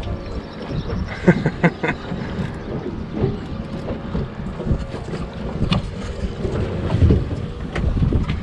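Wind buffeting the microphone aboard a small boat at sea, a steady low rumble. Three sharp knocks come in quick succession about a second and a half in, and another near six seconds.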